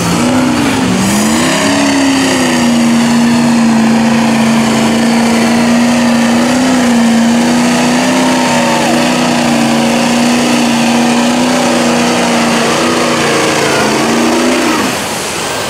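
Lifted Ford Super Duty mud truck's diesel engine revving up and down, then held at steady high revs under load while it plows through deep mud. The revs drop off near the end.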